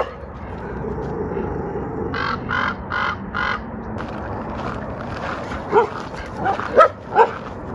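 A Brittany Spaniel barking and yipping up at a bird in a tree: a run of four quick calls about two seconds in, then short high yelps near the end.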